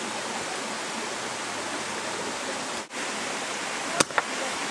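Steady rushing of a waterfall and stream. About four seconds in comes a sharp crack, then a smaller second crack: a karate strike breaking a held wooden board.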